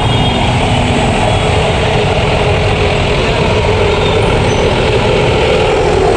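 Bus engine and road noise, a loud, steady rumble.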